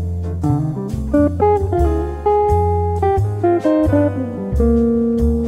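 Background music: plucked guitar melody over a steady bass line.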